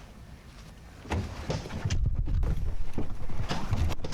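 Irregular clicks, knocks and low thumps of things being handled and moved, starting about a second in.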